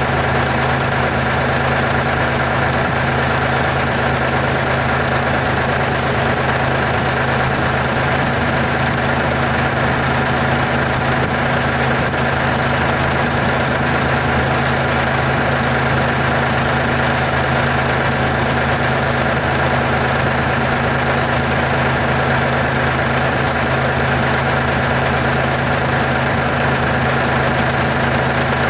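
Terex R-35 dump truck's diesel engine running steadily at idle, with an even pitch and no revving.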